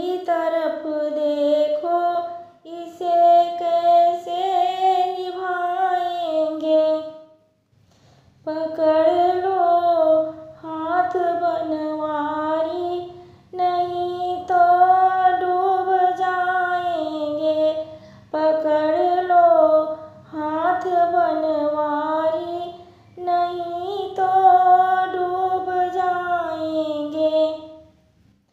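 A woman singing a Shri Krishna bhajan solo, in repeated melodic phrases with short breaks for breath between lines and a longer pause about seven seconds in.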